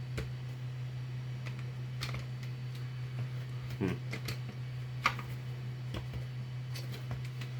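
A few scattered light clicks and taps of plastic Nerf blaster parts being handled, the sharpest about five seconds in, over a steady low hum.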